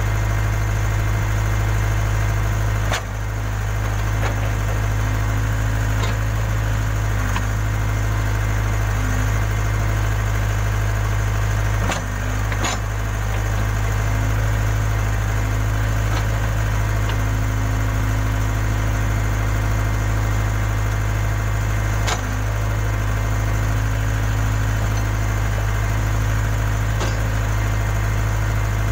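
Case 580K backhoe loader's diesel engine running at a steady speed while it digs, with a few sharp knocks from the working machine about 3, 12 and 22 seconds in.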